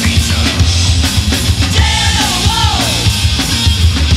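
Hard rock band recording at full volume: electric guitar, bass and drum kit, with a lead melody line that bends and slides in pitch from about two seconds in.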